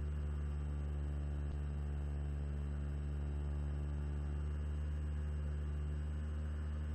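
Electric motor and propeller of an E-flite PT-17 RC biplane running at steady cruise throttle, a low, even drone that holds one pitch throughout.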